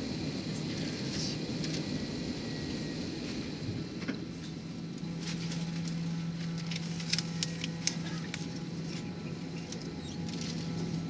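Steady low hum inside an Airbus A319 cabin on the ground, with a steady drone that grows stronger about five seconds in. A scatter of light, sharp clicks comes through the middle.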